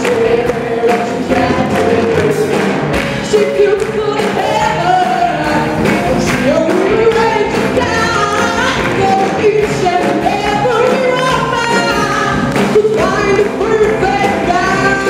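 Live pop-rock band playing: a woman singing lead over electric guitars, keyboard and a drum kit beating steadily.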